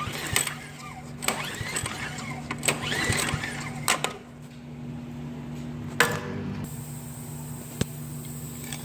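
Old Snapper snowblower engine cranked over four times in quick succession without firing, for a compression test with the spark plug out and a gauge in the plug hole; it reads about 50 psi. A sharp click follows about six seconds in and a lighter knock near the end, over a steady low hum.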